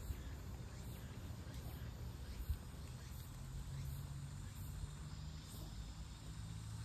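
Faint outdoor background: a steady low rumble, with high-pitched insect chirps repeating about once or twice a second. There is one short knock about two and a half seconds in.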